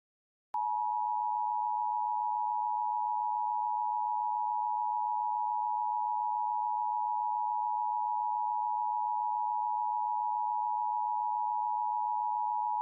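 Emergency Alert System attention signal: a steady two-note tone just under 1 kHz, held unbroken at an even level. It starts with a faint click about half a second in.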